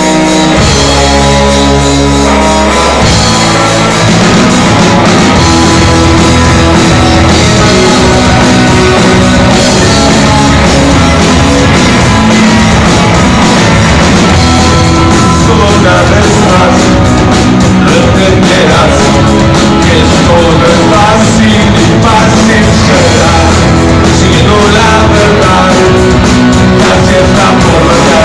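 Rock band playing live and loud: electric guitars and keyboard with a singer. Held opening chords give way to the full band about four seconds in.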